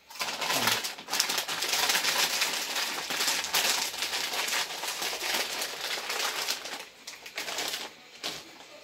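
A snack bag crinkling as it is handled and crumpled, a dense crackle that eases off over the last couple of seconds, with one more short crackle near the end.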